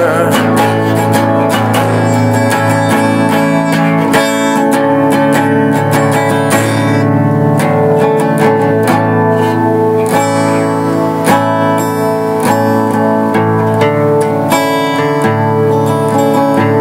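Solo acoustic guitar played by hand: steady strummed chords, the notes ringing on between strokes, with no voice.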